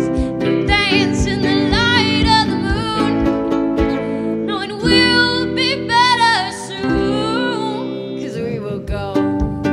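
Indie-folk band playing live: a woman singing over ukulele, acoustic guitar and upright bass, with a kick drum thumping a steady beat.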